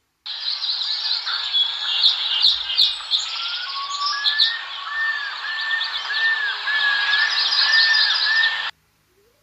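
The Animal 4D+ app playing its sound clip for the argali: an outdoor recording of many birds chirping and trilling over a steady hiss, with a run of repeated arching whistled notes in the second half. It cuts off suddenly near the end.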